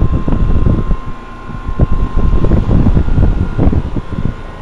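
Discharge air from the running fan of a Carrier high-efficiency central air conditioner's outdoor unit buffeting the microphone in loud, gusty rumbles, over the unit's steady hum.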